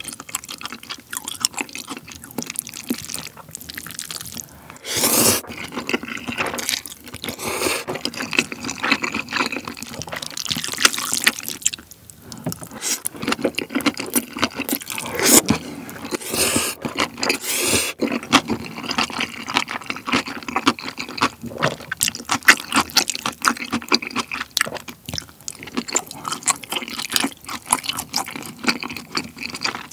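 Close-miked eating of jjajangmyeon (black bean noodles in sauce): wet, sticky chewing and lip smacking, broken by several loud noodle slurps.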